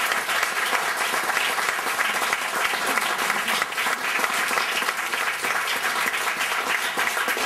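Audience applauding, a dense steady clapping that holds at an even level throughout.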